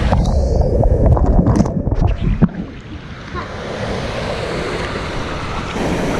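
Loud rushing water with a rumbling wind noise on the microphone, easing off about two and a half seconds in and building again.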